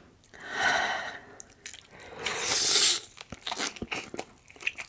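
Close-miked eating sounds: a person biting and chewing food, with two longer noisy mouth sounds followed by a run of small wet clicks.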